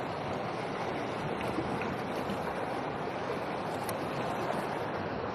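A steady, even rushing noise with no distinct knocks or events.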